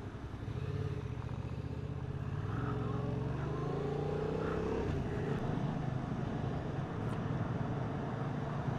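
Yamaha MT-07 parallel-twin engine heard from the rider's seat while riding. Its note rises for a couple of seconds as the bike accelerates, eases off about five seconds in, then runs on steadily.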